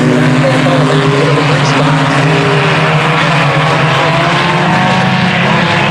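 A pack of IMCA Sport Compact race cars running at speed, their four-cylinder engines rising and falling in pitch over a steady low drone.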